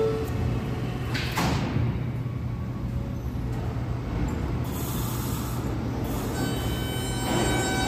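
R160 subway train at the platform: the door chime ends at the very start, and the sliding doors shut with a bang about a second in. Under this runs the train's steady hum, with a hiss of air in the middle. Near the end whining motor tones begin as the train starts to pull out.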